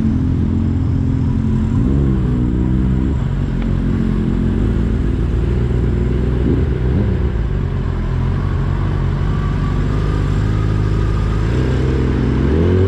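Kawasaki Ninja ZX-10R inline-four engine running at low revs in slow traffic. The revs rise and fall briefly about two seconds in and climb again near the end.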